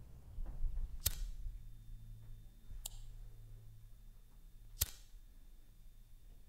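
Handheld lighter flicked three times, about two seconds apart: three sharp clicks of the thumb on the spark wheel.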